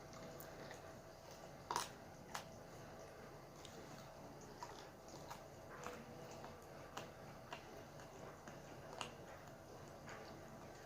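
A dog chewing and crunching a chicken foot: faint, irregular crunches and clicks, with a couple of louder ones about two seconds in.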